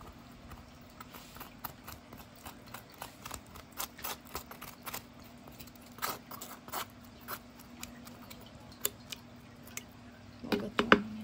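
Metal spoon scraping soft avocado flesh out of the skin in a run of short scrapes and clicks, then a few louder knocks near the end as the spoon taps against the jar.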